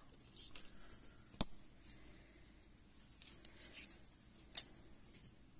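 Small craft tools and desk items being handled and moved about while searching for a paintbrush: faint rustling and scraping, with a sharp click about a second and a half in and another about three seconds later.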